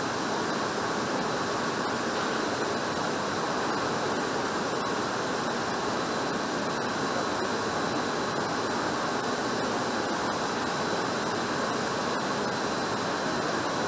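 Steady factory-hall background noise: an even rushing hiss from ventilation and machinery, with a faint steady high whine and a few faint ticks.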